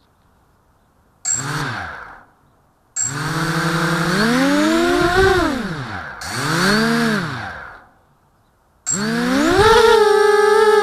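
Brushless motors and propellers of a 250-size FPV quadcopter spinning up in throttle blips: a short rising-and-falling whine about a second in, a longer one and another shorter one in the middle, with silence between. Near the end the motors spin up to a steady whine as the quad lifts off.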